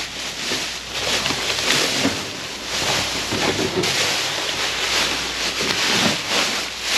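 Plastic garbage bags rustling and crinkling in uneven bursts as gloved hands dig through them and pull them about.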